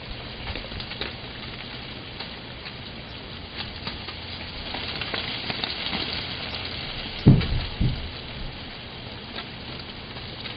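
A dog's paws crunching through ice-crusted snow, a crackly, gritty texture that thickens in the middle. Two dull thumps come about seven seconds in.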